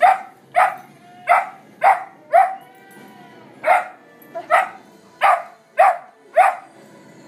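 American Staffordshire terrier puppy barking: about ten short, sharp barks, roughly two a second, with a pause of about a second near the middle.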